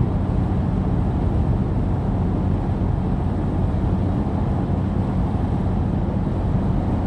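A vehicle engine running steadily: an even, low droning hum with no change in pitch.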